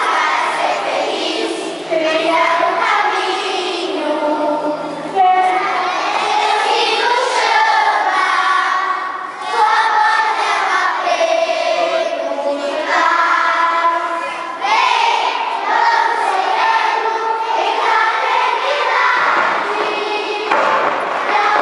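A group of children singing together in unison, with long held notes.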